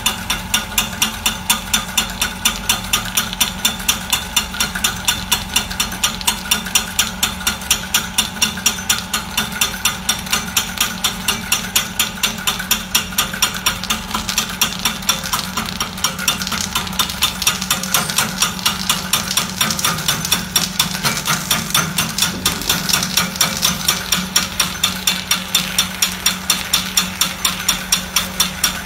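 Corn puff snack extruder running: a steady motor hum under a fast, even clicking, about three a second, as it turns out puffed corn.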